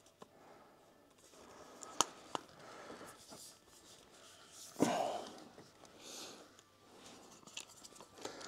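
Quiet handling of table-leg parts during assembly: two sharp clicks about two seconds in, a louder knock near the middle, and faint rustling in between.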